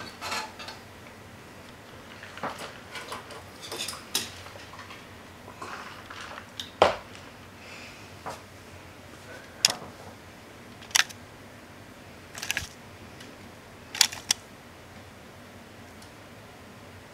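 Scattered small, sharp clicks and taps of handling: wire leads and a soldering iron worked against a plastic Lite-Brite panel, the loudest tap about seven seconds in.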